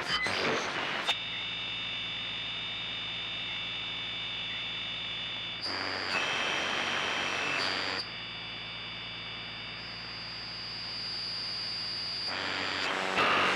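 Electronic ambient music: sustained synthesizer tones, with high steady whistle-like notes held over low drones. The held chord shifts to a new one a few times.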